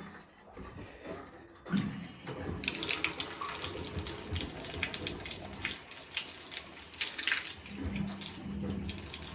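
A tap turned on and running into a sink, the flow starting about two seconds in and coming through unevenly in spurts, as water is drawn through freshly fitted pipework.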